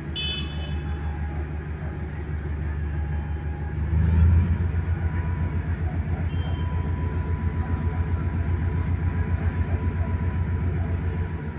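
Diesel-electric multiple unit (DEMU) passenger train's engine running with a low, pulsing throb that grows louder about four seconds in as the train powers up to depart. A brief high-pitched toot sounds right at the start.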